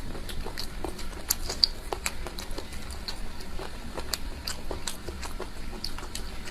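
Close-miked chewing: a mouth working food with a steady run of soft, irregular clicks and smacks.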